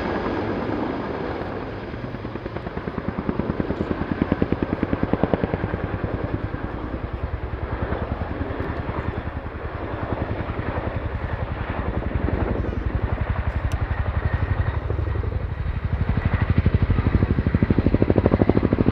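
RAF Boeing Chinook HC.6 tandem-rotor helicopter flying a low orbit, its twin rotors giving a rapid, even blade slap. It grows louder in the last few seconds as the aircraft comes round closer.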